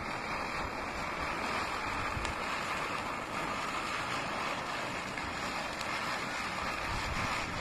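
A chakri, a ground spinner firework, spinning on concrete and giving off a steady hiss as its powder burns and throws sparks.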